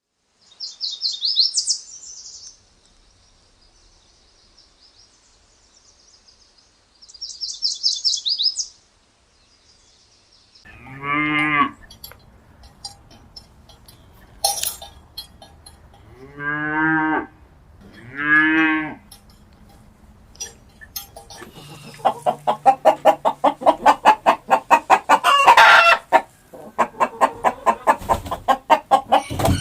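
A series of animal calls: two short bursts of high-pitched chirping trills, then three long, deep calls from a large farm animal, then a fast run of repeated short calls, several a second, over the last seven seconds.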